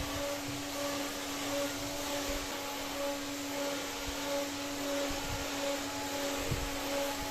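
Homemade battery table fan with a 385 DC motor running steadily: a motor hum under the rush of air from the blades, with a fainter tone that pulses about twice a second.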